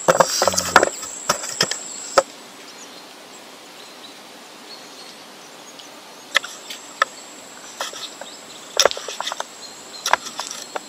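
Kitchen knife cutting shallots and a tomato on a wooden chopping block: sharp knocks of the blade meeting the wood, a cluster in the first two seconds and more from about six seconds in. A steady high insect trill runs behind and pauses for a few seconds in the middle.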